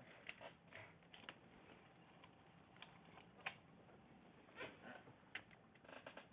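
Faint, scattered clicks and light taps from small phone parts and tools being handled while an opened iPhone X is reassembled.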